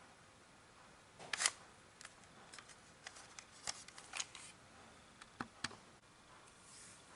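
Plastic clicks and clacks from a toy spring airsoft pistol being handled and worked, about a dozen scattered sharp clicks, the loudest a double clack about a second and a half in.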